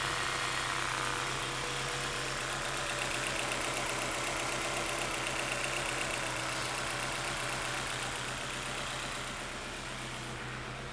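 Honda H22A 2.2-litre DOHC VTEC four-cylinder idling steadily, heard from the engine bay, a little quieter near the end.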